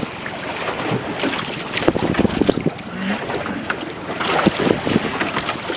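Wind buffeting the microphone and water sloshing against a small boat at sea, with scattered knocks.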